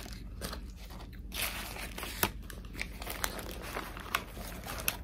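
Paper sandwich wrapper crinkling and rustling in scattered crackles and sharp little clicks as hands squeeze and fold it around a large sandwich, close to the microphone.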